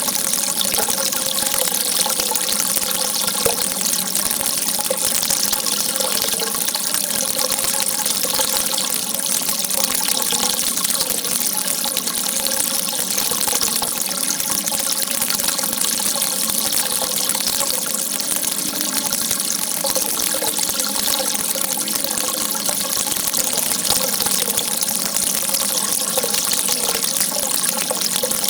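Water gushing out in a steady jet: a continuous, even rush of hiss with no breaks.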